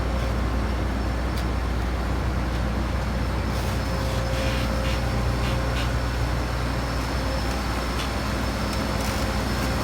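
Farm machine's diesel engine running steadily at low speed as it eases into a tight storage shed, with a few faint clicks partway through.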